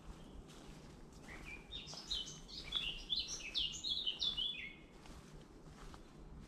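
A songbird singing one rapid phrase of quick, high, downward-sweeping notes, starting about a second in and lasting about three and a half seconds.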